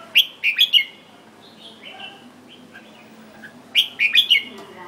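Red-whiskered bulbul singing: two short, loud bursts of quick chirpy notes, one just after the start and another near the end, with a few softer notes between.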